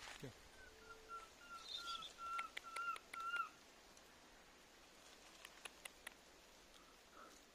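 A young monkey, left behind by its group, whistling a run of about nine short notes that sound like a bird singing, growing louder over about three seconds. A few faint ticks follow a couple of seconds later.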